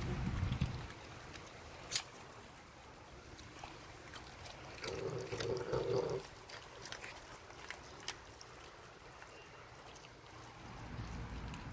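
Puppy chewing raw fish: wet mouth sounds and scattered sharp clicks of teeth on bone, with one louder click about two seconds in and a brief low tone about five seconds in.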